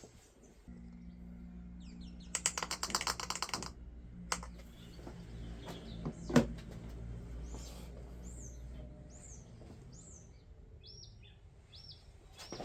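A rapid run of clicks lasting about a second, over a low steady hum, with a single sharp knock a few seconds later. Birds chirp in short calls near the end.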